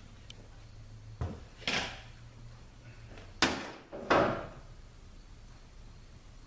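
Metal transmission pump parts knocking and clunking as they are handled and test-fitted: four sharp knocks about a second apart, the last two the loudest, over a faint low hum.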